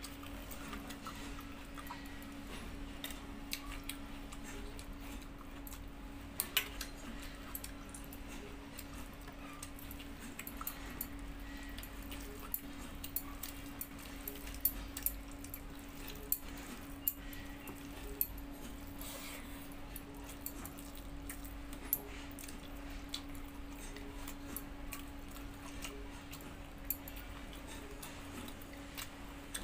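Person eating rice and curry by hand from a steel plate: scattered small clicks and smacks of chewing and of fingers working the food on the plate, over a steady low hum.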